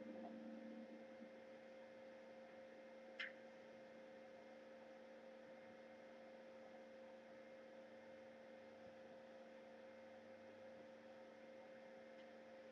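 Near silence with a faint steady electrical hum and one short high click about three seconds in.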